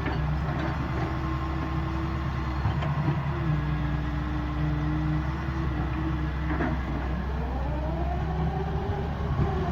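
Doosan excavator's diesel engine running steadily at work, with a sharp knock about two-thirds of the way in and then a whine that rises and falls.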